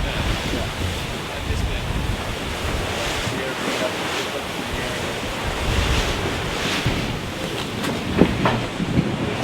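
Wind buffeting the microphone over the rush of sea water past a Volvo Ocean 65 racing yacht sailing fast downwind, with a sharp knock about eight seconds in.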